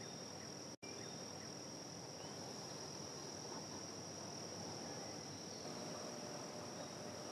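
Insects shrilling: a steady, faint, high-pitched buzz that drops out for a split second less than a second in.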